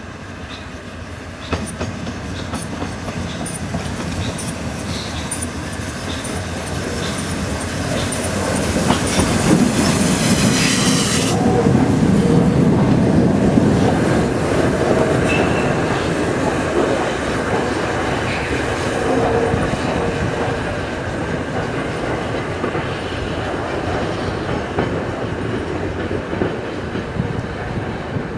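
LNER Peppercorn A1 Pacific steam locomotive Tornado running past as a light engine. Its wheels clatter over rail joints and points, growing louder as it approaches, loudest around ten to fourteen seconds in, then slowly fading. A high hiss rises as it nears and cuts off suddenly about eleven seconds in.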